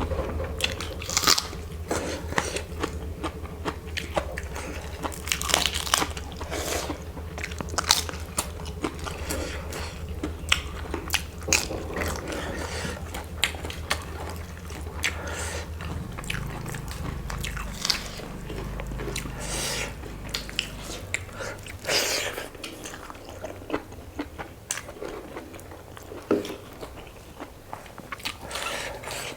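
Close-up eating sounds: chewing and many irregular sharp crunches of crisp food being bitten. A low background hum changes about halfway through and dies away around two-thirds of the way in.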